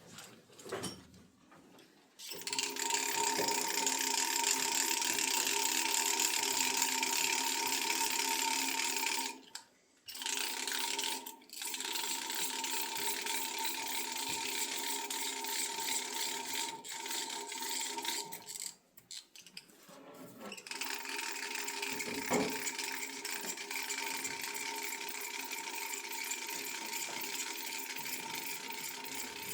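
Geared hand winder being cranked to wind a model helicopter's rubber-band motor: a steady, fine ratcheting whir that starts about two seconds in. It stops briefly three times, then carries on.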